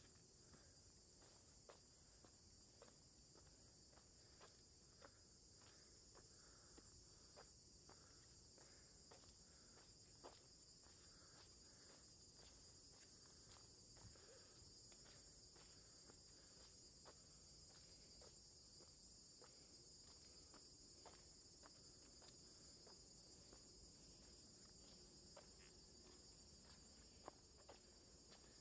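Faint steady high-pitched chorus of insects in the forest, with the light, regular footsteps of a hiker walking on stone steps.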